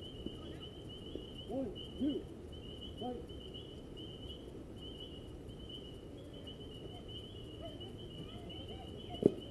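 Insects chirping in a steady high pulsing trill, with a few faint distant shouts, then near the end one sharp crack of a bat hitting a baseball.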